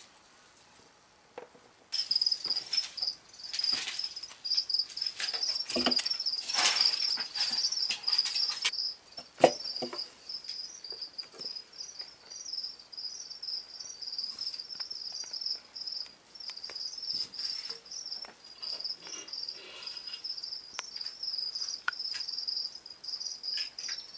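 A mouse squeaking in a rapid, unbroken string of high chirps while a corn snake constricts it. Rustling and clicks from the struggle on paper in a plastic tub are heaviest in the first half, with one sharp knock near the middle.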